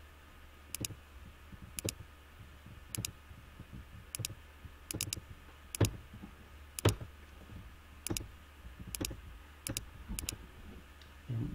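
Computer mouse button clicking about a dozen times, roughly once a second. Each click is a quick press-and-release pair, over a low steady hum.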